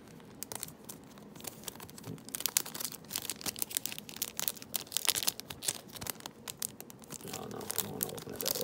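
Foil trading-card booster pack being torn open and crinkled by hand: quick sharp crackles of the foil, thickening into a dense run of crinkling from about two seconds in.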